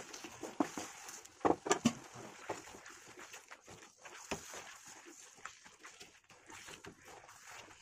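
Thick vegetable pav bhaji in a pan being stirred with a wooden spatula and mashed with a metal potato masher: irregular soft knocks and wet squelches against the pan, loudest in a quick cluster about one and a half seconds in, over a faint simmering hiss.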